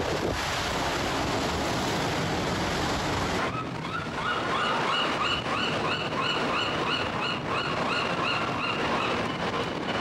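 Ocean surf breaking and washing over rocks, a steady rushing roar. From about a third of the way in, a run of short, high-pitched calls repeats about three times a second over the surf.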